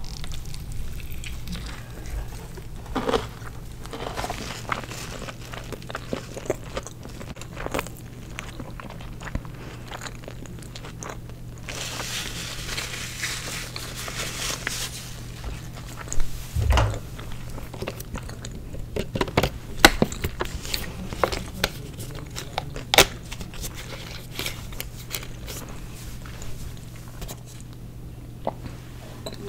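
Close-miked chewing and crunching of fast food, with many small crackles and mouth clicks, over a steady low hum.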